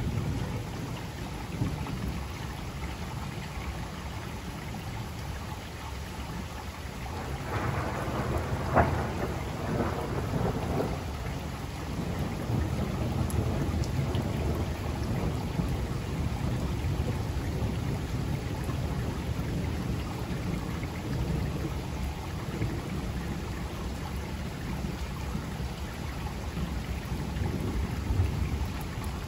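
Steady rain falling with low rolling thunder. About seven seconds in a louder swell rises, with one sharp crack near nine seconds, then dies back.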